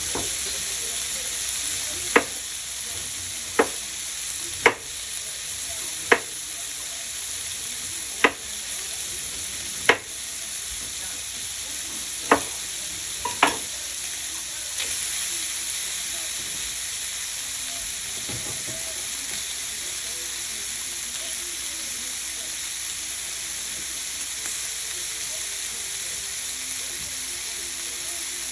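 Sliced turkey sausage sizzling steadily in a frying pan, while a knife chops through a red onion onto a wooden cutting board in about eight sharp strokes during the first half; after that only the sizzling goes on.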